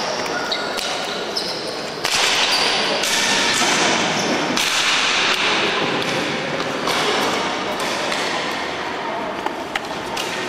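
Echoing din in a box lacrosse arena as a team runs out onto the concrete floor: a mix of voices, clattering sticks and gear, and sharp knocks like lacrosse balls bouncing off the floor. The noise gets suddenly louder about two seconds in.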